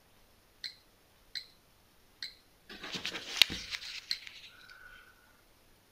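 Three short clicks about a second apart, then a second or so of thin plastic bag crinkling as the bagged glass marbles are handled.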